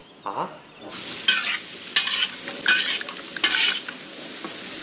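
Food sizzling in a hot wok as a metal spatula stirs and scrapes it in repeated strokes, starting about a second in.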